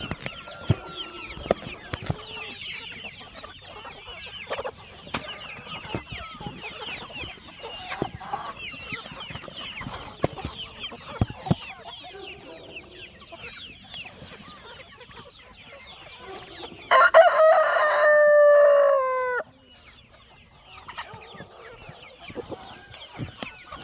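A flock of chickens clucking and chirping. About seventeen seconds in, a rooster crows once, loudly, for about two and a half seconds, the call falling slightly in pitch before cutting off.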